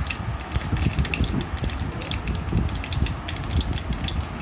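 Mustard seeds spluttering in hot oil in an aluminium kadai: quick irregular pops and crackles over a low rumble.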